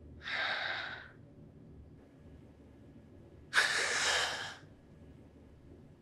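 A person sighing twice: a short breathy sigh at the very start, then a sharper, louder one about three and a half seconds in.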